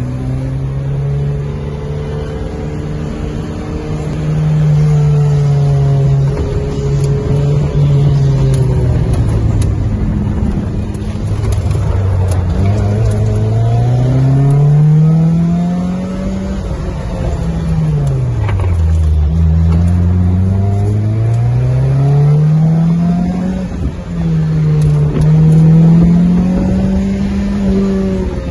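Lotus Elise's mid-mounted four-cylinder engine heard from inside the car on an autocross run, revs climbing as it accelerates and dropping as it slows through the cones, again and again. The deepest drop in revs comes about two-thirds of the way through.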